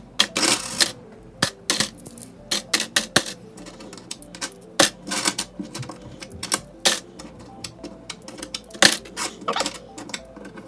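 Coins, mostly pennies, being dropped by hand into the cups of a clear plastic egg tray, three to a cup: a quick, irregular run of clicks and clinks.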